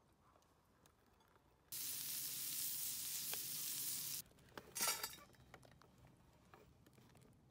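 Meat sizzling in a wire grill basket over a wood-fired rocket stove, starting about two seconds in and cutting off suddenly after about two and a half seconds. A moment later comes a brief metallic clink.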